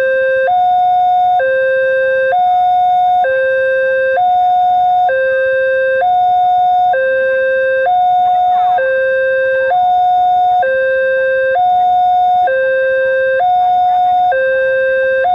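Railway level-crossing warning loudspeaker sounding its electronic two-tone alarm, switching between a higher and a lower tone about once a second, the signal that a train is approaching and the barrier is down.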